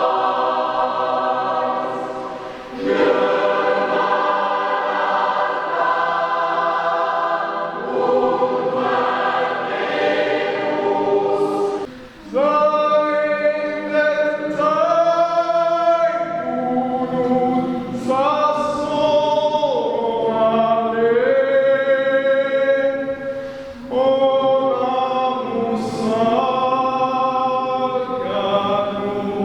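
Amateur choir singing in several-part harmony, holding chords in phrases of a few seconds with brief pauses between them.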